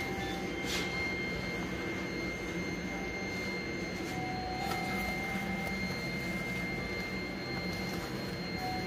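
Steady indoor background hum and hiss with a thin, constant high-pitched whine, and a couple of faint clicks.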